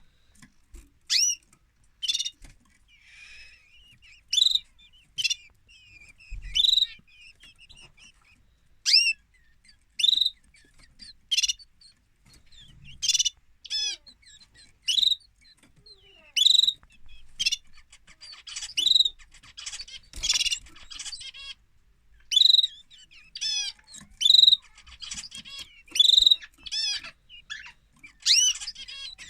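Domestic canary calling: short, high chirping notes repeated about once every second or so, turning into faster twittering near the end.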